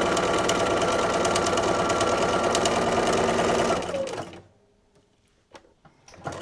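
Electric sewing machine stitching through paper at a steady fast speed, its motor whine and rapid needle ticks holding even, then winding down and stopping about four seconds in. A couple of faint clicks follow near the end.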